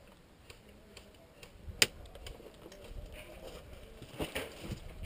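Movement through dry scrub: scattered crackling and rustling, with one sharp crack about two seconds in and a few more knocks near the end.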